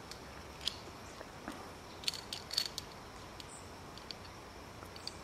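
Metal safety carabiners clinking on a steel cable as they are clipped over: a few sharp clicks, with several close together about two seconds in.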